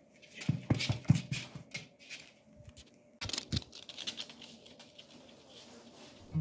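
Scattered knocks and scrapes of a phone being handled and set down on a laminate floor, with a sharper knock a little after three seconds, then faint light clicks of a small dog's claws and a person's steps on the floor.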